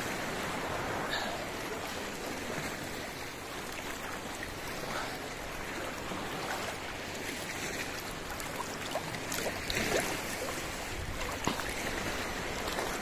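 Seawater sloshing and lapping close to the microphone: a steady rushing with scattered small splashes and clicks.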